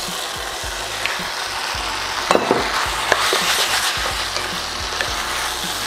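Cubed raw chicken breast sizzling as it goes into a hot stainless-steel pan of seasoned vegetables, stirred with a wooden spoon to sear it. A steady frying sizzle runs throughout, with a few scrapes and knocks of the spoon against the pan, most marked about two seconds in.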